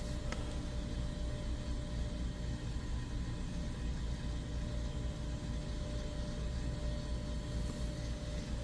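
Steady low machinery hum and hiss with a faint constant whine, the background drone of a shop's equipment.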